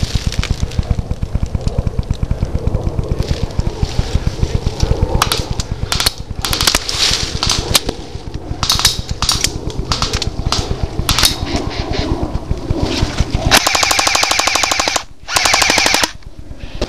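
Airsoft guns firing: scattered single shots, then a rapid full-auto burst of about a second and a half, a brief gap, and a second shorter burst near the end. Under the shots runs a steady low thudding of footsteps through dry leaves.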